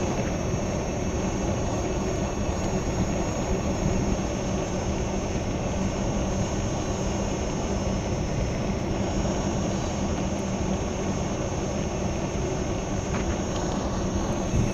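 Steady wind rush and road rumble of riding a Gotway MCM4 electric unicycle, with a constant thin high whine and a low hum over it.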